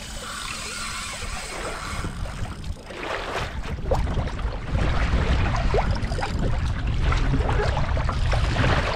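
Wind buffeting the microphone and open-ocean water sloshing and splashing against a kayak hull and its outrigger floats, the low wind rumble growing louder about halfway through.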